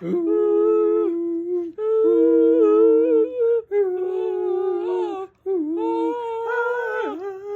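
Two people toning: both voices hold long wordless tones at the same time, a few notes apart, each tone held for a second or two with short breaks for breath, the pitches sliding and wavering slightly.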